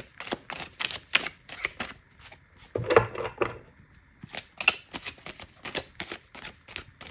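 Tarot cards being shuffled by hand: a quick, irregular run of crisp clicks and slaps as the deck is worked to draw a clarifying card.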